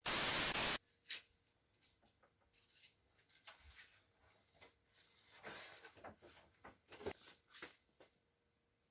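A short, loud burst of hiss at the very start, then scattered light clicks and rustles, busiest in the last few seconds.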